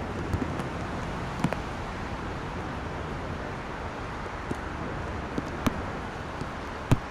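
Steady wash of road traffic from the wet highway below, with a few scattered sharp ticks; the loudest tick comes near the end.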